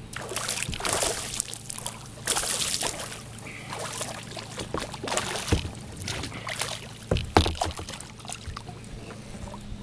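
Kayak paddle strokes dipping into and splashing the water, a handful of uneven strokes, some louder than others.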